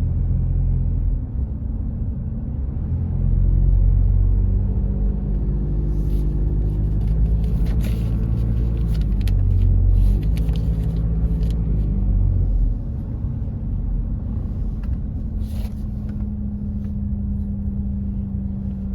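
A car on the move, a steady low engine and road rumble, with scattered sharp clicks and knocks between about six and twelve seconds in. Near the end the rumble drops a little and a steady low hum takes over.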